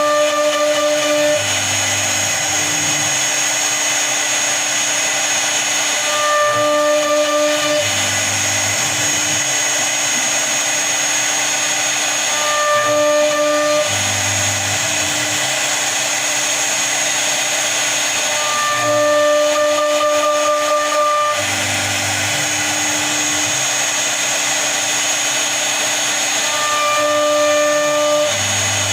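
CNC router spindle running steadily with a high whine as it carves a door design. A set of humming motor tones comes back every six or seven seconds as the machine moves through the cut.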